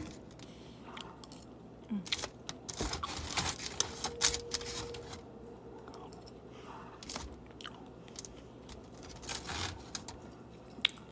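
A person chewing and eating a burrito close to the microphone, with scattered short clicks and crinkles that are busiest a few seconds in.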